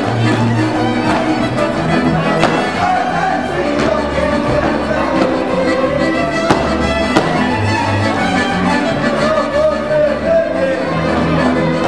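Transylvanian village string band playing a dance tune: several fiddles bowing the melody together over the contra's chords, accordion and a double bass pulsing underneath.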